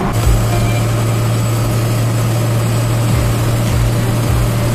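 First-generation Dodge Ram's 12-valve Cummins inline-six diesel heard from inside the cab while driving: a steady low drone over road rumble.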